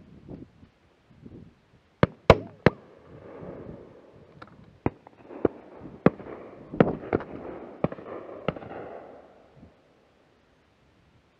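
Shotgun shots in quick succession from several guns, about eleven sharp cracks over some seven seconds. The loudest three come close together about two seconds in, with a rumble carrying on between the shots.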